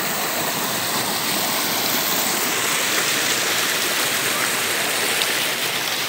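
Creek water rushing over granite rocks in small cascades: a steady, even rush of running water.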